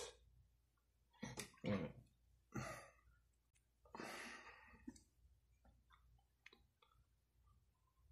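A person's faint breathing, with a long breathy exhale or sigh about four seconds in and a few short mouth or throat sounds before it, then scattered small clicks and taps.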